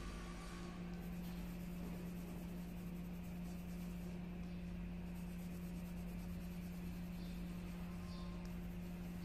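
Faint scratching of a colouring tool's tip rubbing back and forth on paper as a drawing is coloured in, over a steady low hum.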